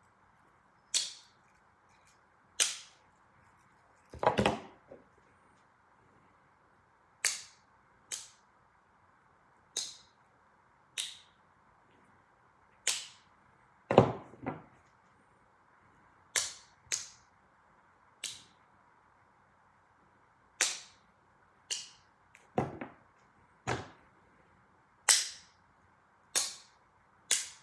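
Swiss Army knife blades and tools snapping open and shut on their back springs: about twenty sharp metallic clicks at irregular intervals. Two heavier knocks come about four seconds in and near the middle.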